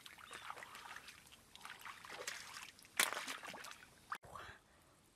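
Hands groping and splashing in shallow muddy water while feeling through the mud for snails: irregular sloshing and squelching, with a sharper splash about three seconds in. Just after four seconds the splashing stops abruptly and it turns much quieter.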